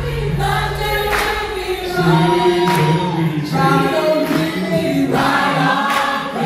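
A choir sings held notes over backing music, with a regular beat of drum hits.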